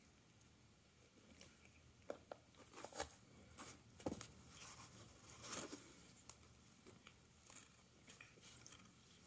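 Faint, scattered scratching and rustling, starting about two seconds in: a cat scrabbling in a cardboard pizza box while it bats and grabs at a feather wand toy.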